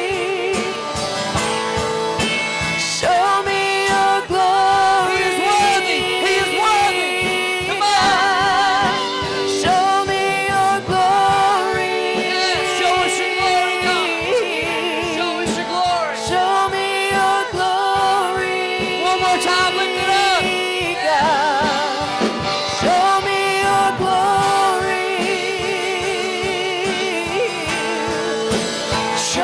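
Live gospel worship music: voices singing long, wavering held notes over sustained instrumental accompaniment with a steady beat.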